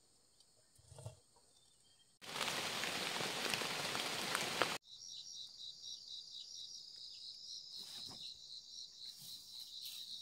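A loud, even rushing noise lasts about two and a half seconds and cuts off suddenly. Then insects keep up a steady, high-pitched pulsing chirp.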